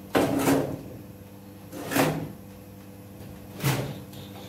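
Metal clanking and scraping as an aluminium baking tray and the sheet-metal door of a gas bread oven are handled against the oven's steel frame: three knocks, the first a longer scrape, the others about two seconds apart.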